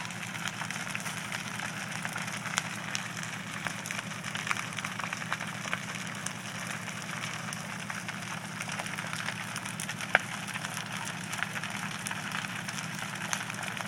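Wood-frame house fully ablaze: flames rushing steadily, with many crackles and pops from the burning timber and one sharper pop a little after the middle. A low steady hum runs underneath.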